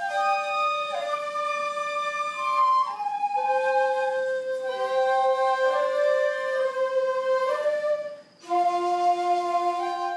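A shakuhachi ensemble playing long held notes together in parts, moving from note to note. There is a brief break about eight seconds in before the next held chord.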